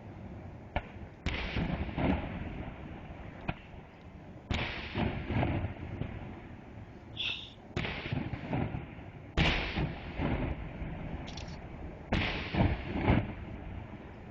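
Aerial fireworks shells bursting in a series of about seven heavy bangs, with lighter crackles between them. Each bang is followed by a long, rolling echo off the canyon walls.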